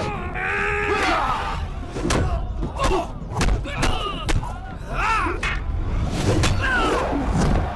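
Fight-scene soundtrack of a spear duel: a series of shouted battle cries, the longest held for about a second at the start, with crowd yelling and sharp knocks of spear strikes in between.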